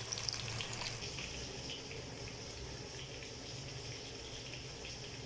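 Chicken gravy simmering in a pan: a steady bubbling.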